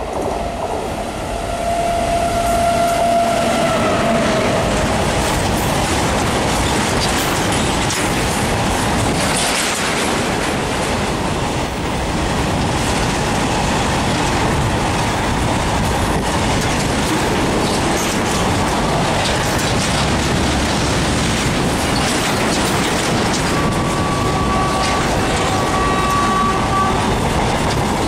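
Passenger train running past close at high speed: a loud, steady rush of wheels on rail with rapid clickety-clack over the joints. A horn tone carries on briefly near the start and dies away, and faint wheel squeal can be heard near the end.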